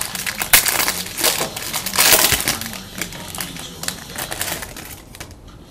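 A trading-card pack's plastic wrapper being torn open and crumpled in the hand, giving dense, irregular crackling with sharp clicks. It is loudest in the first couple of seconds and dies down near the end.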